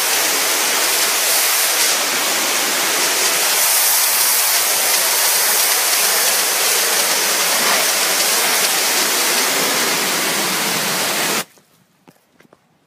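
Pressure washer jet blasting paving slabs: a loud, steady hiss of spraying water that stops abruptly near the end.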